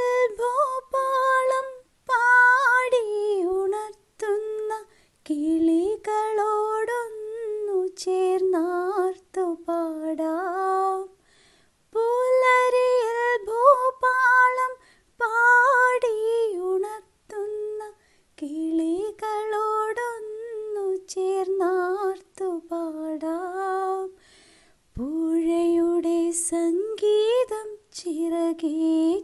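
A woman singing a Malayalam Christian praise song unaccompanied, in short phrases separated by brief pauses.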